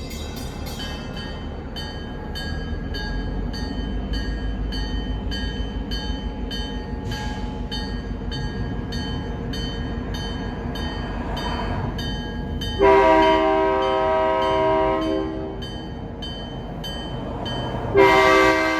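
Diesel locomotive passing with its bell ringing about twice a second over the engine's rumble, then sounding its multi-note air horn in one long blast about two-thirds of the way in and a second blast starting near the end.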